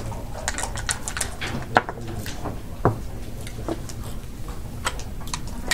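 Backgammon dice rolled onto the board and checkers slid and set down on it: a series of sharp clicks and knocks, several in quick succession in the first second, then single clicks every second or so.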